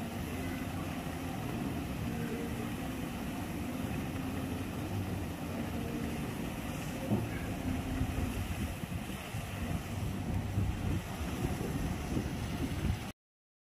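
Paddlewheel pond aerator running: a steady motor drone over churning water, with wind buffeting the microphone in the second half. The sound cuts off abruptly near the end.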